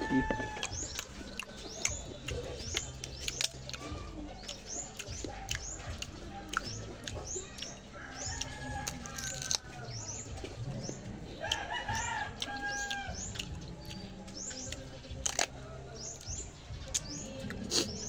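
A rooster crowing a couple of times, with small birds chirping over it throughout in quick, falling chirps.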